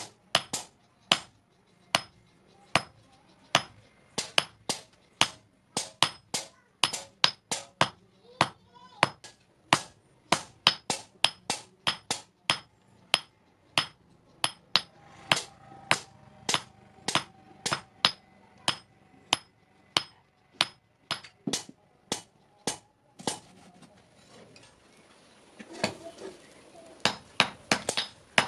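Hammer blows on hot steel over an anvil, forging a knife blade, about two strikes a second, each with a bright metallic ring. The hammering pauses for a couple of seconds near the end, then resumes.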